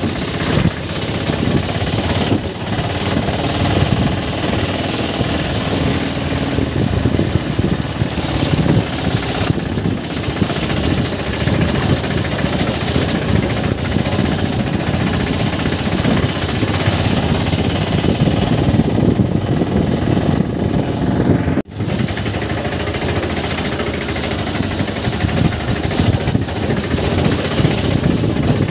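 Motorcycle engine running steadily while riding along a muddy dirt road, a rough, continuous engine sound mixed with road and wind noise, with a brief dropout about 22 seconds in.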